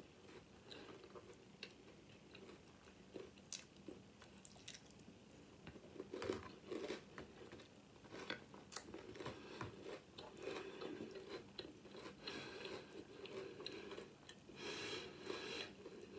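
A person chewing hard, crunchy Sour Patch Kids cereal, with faint, irregular crunches that come thicker and louder in the second half.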